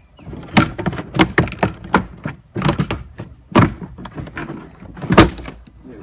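Plastic cargo-area trim panel of a Chevy Trailblazer being worked loose and pulled off: a rapid, uneven run of knocks and plastic clunks, the loudest about five seconds in.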